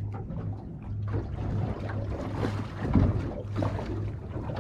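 Sounds aboard a small boat at sea: wind on the microphone and water noise over a steady low hum, with a few faint knocks, the strongest about three seconds in.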